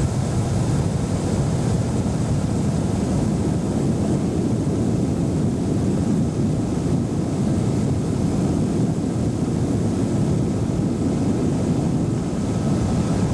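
A boat's outboard motor runs steadily under way, with a low rumble of wind on the microphone.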